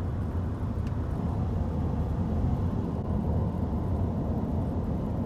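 Steady low rumble of a car driving, with no sudden events.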